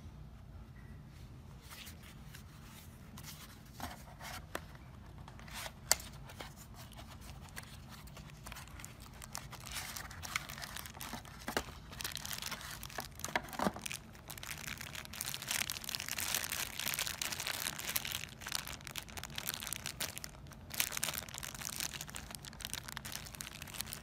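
Clear plastic accessory bag being handled, crinkling and rustling in dense spells through the second half. Earlier there are a few sharp clicks and taps from handling the box, the loudest about a quarter of the way in.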